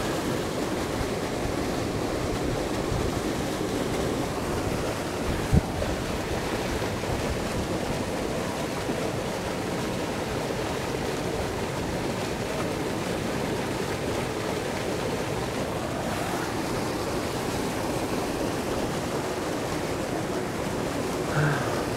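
Steady rush of water pouring from a dam spillway's outlet pipe into a churning pool, with one short knock about five and a half seconds in.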